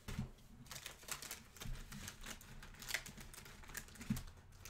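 Scattered light clicks and taps of hands handling things on a desk, coming irregularly.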